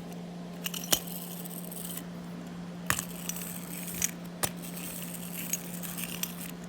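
Scattered light clicks and taps of a small tin toy being handled, about half a dozen at uneven intervals, over a steady background hum.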